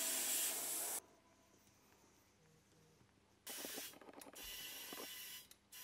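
Compressed air hissing: one loud burst in the first second, then a pause of about two seconds, then shorter bursts of hiss with a few light clicks.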